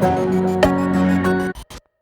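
Gentle instrumental background music with slow plucked notes, which cuts off about one and a half seconds in and leaves a brief silence.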